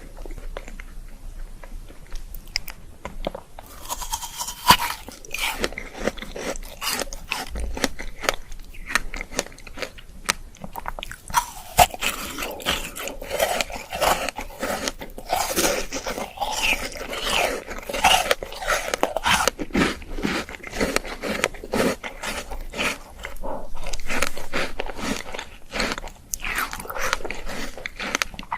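Ice being bitten and crunched close to the microphone: a rapid run of crisp crunches and chewing, sparse for the first few seconds and much denser after that.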